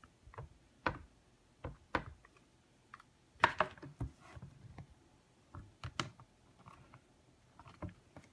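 Irregular light taps and clicks from a stamp being inked with an ink pad and a stamping platform being handled, with two louder knocks about three and a half and six seconds in.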